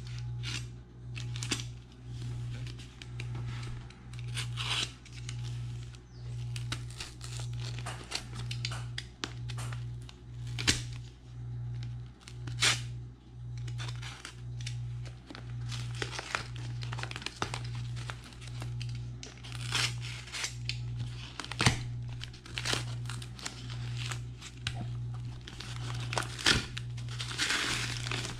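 Utility knife cutting through packing tape and brown paper wrapping, with paper crinkling and tearing and sharp clicks and scrapes of the blade. Underneath runs a low hum that pulses about one and a half times a second.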